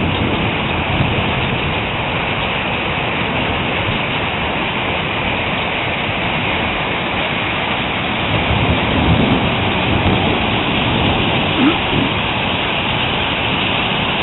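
Hail and heavy rain pelting down in a steady, dense hiss during a thunderstorm.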